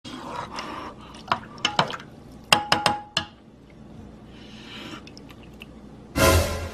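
A metal spoon clinking and scraping against a cooking pot while someone eats from it: a string of sharp clinks between about one and three seconds in, one of them ringing briefly. A short, louder sound cuts in near the end.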